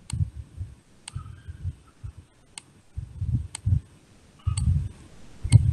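Computer mouse clicks, about one a second, as marks are drawn on a whiteboard on screen, with soft low thumps of handling between them.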